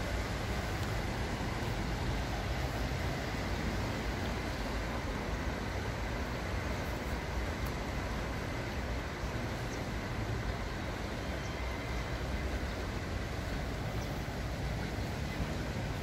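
Steady outdoor background noise: an even low rumble with hiss and a faint steady high tone, with no distinct events.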